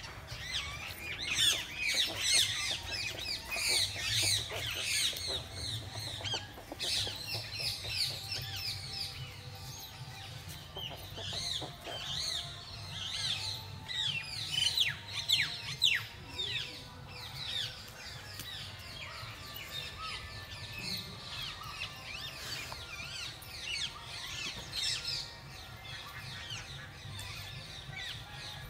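Many birds chirping and twittering, a dense chorus of quick calls that thins out after about 16 seconds, over a low steady rumble.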